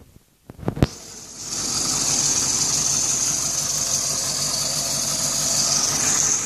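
A few sharp knocks about half a second in. Then a small 4x4's engine runs steadily at idle, with a steady high hiss over it that eases off near the end.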